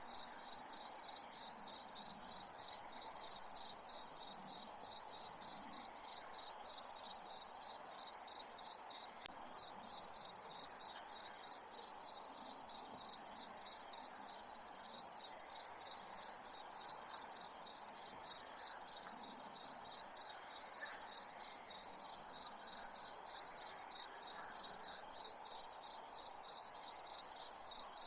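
Crickets chirping at night: a high, clear chirp repeated evenly about three times a second, without pause, over a faint background hiss.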